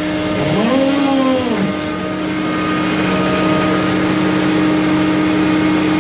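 Trawler's net winch and engine running steadily under load as the codend of the trawl is hauled up the stern ramp, with a whine that rises and then falls in pitch about a second in.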